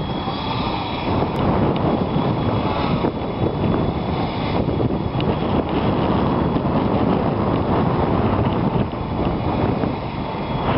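Strong wind buffeting the microphone, a loud continuous rumble, with a faint steady high whine from a mini quadcopter's electric motors underneath.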